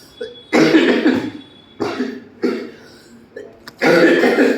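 A man coughing in a run of about five or six coughs. The loudest come about half a second in and near the end. It is the cough of a patient ill with a cold, asthma and fever.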